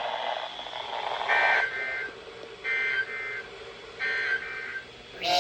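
Emergency Alert System end-of-message signal from a NOAA Weather Radio broadcast: three short bursts of warbling two-tone data, about a second apart, marking the end of the severe thunderstorm warning. A brief loud burst of noise comes near the end.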